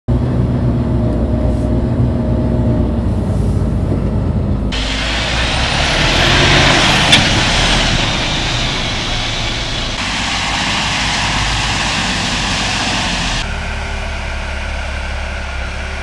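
Mercedes-Benz Arocs tipper truck driving off-road: its diesel engine runs steadily, then about five seconds in a loud rushing hiss of tyres on gravel takes over, with one sharp click about seven seconds in. About thirteen seconds in it drops to a quieter, steady engine sound.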